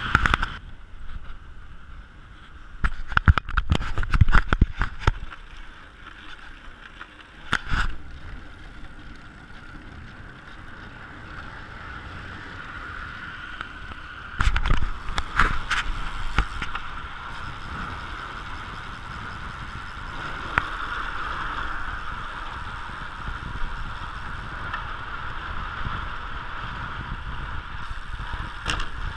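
Wind rushing over a bike-mounted action camera's microphone while riding a road bike, with tyre and road rumble underneath. Two spells of louder buffeting and knocking come a few seconds in and about halfway.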